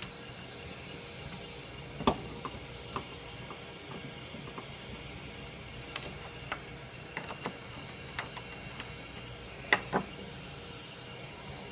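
Scattered clicks and knocks of a wooden block and metal clamp parts being handled and tightened on a CNC router's spoilboard, the sharpest about two seconds in and a pair near the end, over a steady low hiss.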